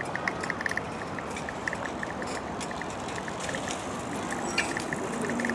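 Steady rushing outdoor noise on a handheld camera's microphone, mostly wind, carried while walking along a park path. Short, faint, high chirps repeat irregularly over it.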